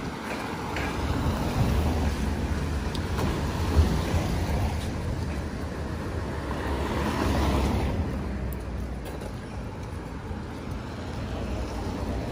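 A car passing on the street, its noise swelling and then fading about eight seconds in.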